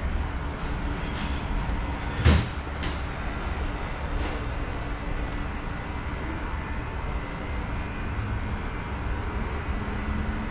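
Travel trailer's electric power awning motor running steadily as the awning extends, with a sharp knock about two seconds in.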